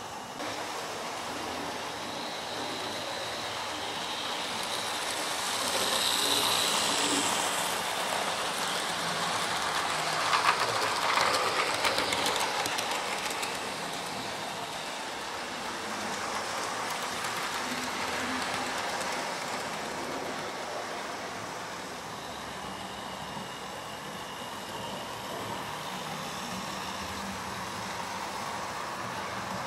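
Model HST (InterCity 125) train running on the layout's track, its electric motor whirring and its wheels clicking over the rail joints. It gets louder as it passes close, about a third of the way in.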